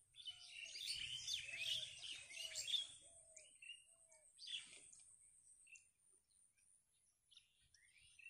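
Birds chirping and twittering, busiest in the first three seconds. A short low call repeats about six times, roughly every half second. The calls thin out to near silence after about five seconds.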